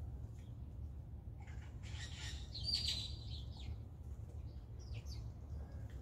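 Blue jay calling: one harsh, rasping call about a second and a half in, lasting around two seconds, followed by a few short, faint chirps, over a steady low background rumble.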